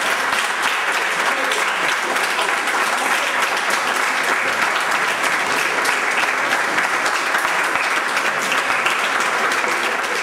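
Audience applauding steadily, the dense clatter of many hands clapping at once.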